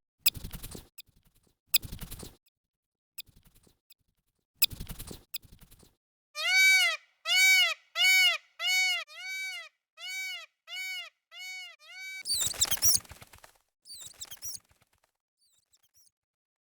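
An animal calling: a run of about nine short, rising-and-falling pitched calls, evenly spaced and fading, after three sharp knocks and before a harsh noisy burst.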